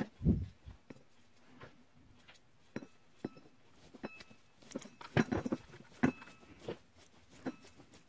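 Soft Brillo pad scrubbing the oxidised contact pads of a Honda Civic power window switch board in short, scratchy strokes with small clicks, busiest about five to six seconds in. The scrubbing clears corrosion from switch contacts that had made the windows work only some of the time.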